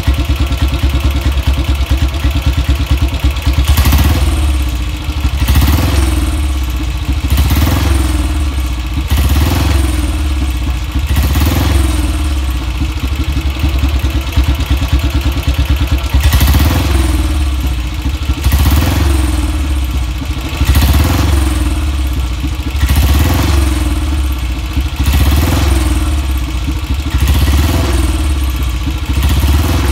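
BSA Gold Star DB32's 350 cc single-cylinder pushrod engine running, its throttle blipped again and again, with the revs rising and falling about every two seconds.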